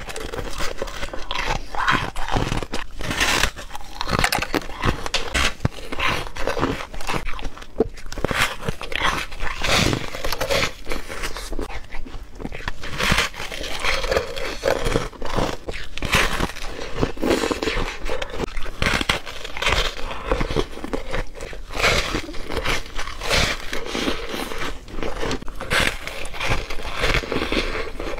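Close-up crunchy bites and chewing of a foam ice donut, a dense irregular run of crisp crunches one after another.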